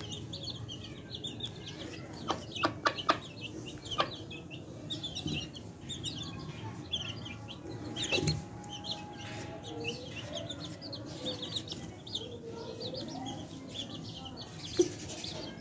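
Chicks peeping in a rapid scatter of short high calls while a mother hen gives low clucks, most of them in the second half. A few sharp taps sound in the first half.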